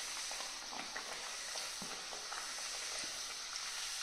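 Spinach (palak) pooris deep-frying in hot oil in a stainless steel kadhai: a steady sizzle with small crackles, as a slotted spoon presses them so they puff up.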